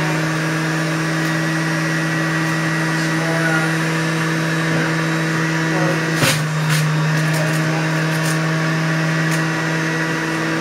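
Juiceman centrifugal juicer's electric motor running with a steady hum while kale is fed into it. About six seconds in the pitch briefly sags with a short crunch as the greens hit the spinning grater disc, then the motor picks back up.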